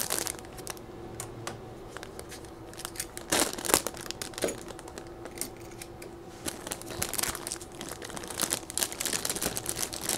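Plastic packaging bag crinkling and crackling in irregular bursts as it is handled and worked open, over a faint steady hum.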